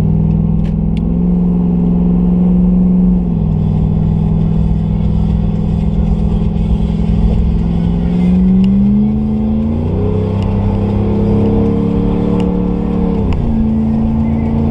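2010 Ram 1500 pickup's engine pulling under acceleration onto a highway. Its pitch drops at an upshift about three seconds in, climbs again, then drops at a second upshift near the end.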